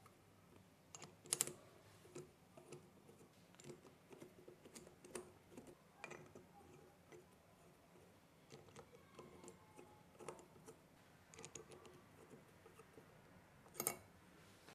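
Faint, irregular small metallic clicks and ticks of a hand driver and spark plugs being fitted into the cylinder head of a Toyan FS-V800G miniature V8 engine. Louder clicks come about a second and a half in and again near the end.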